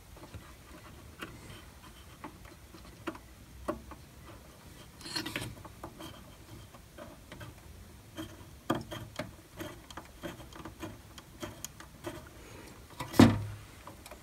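Wires being pushed and fed through plastic cable trunking inside an electrical enclosure: scattered light clicks and rustles of cable against plastic, with one louder knock near the end.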